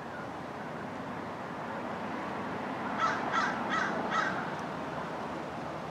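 A crow cawing four times in quick succession, about a second long in all, over a steady low background hum.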